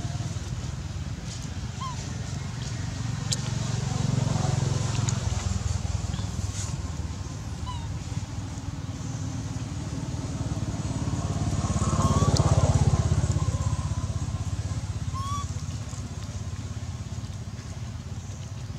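Low drone of motor vehicle engines, twice swelling louder: once about four seconds in and most strongly about twelve seconds in, as a vehicle passes close by and fades away. A few short faint chirps sound now and then.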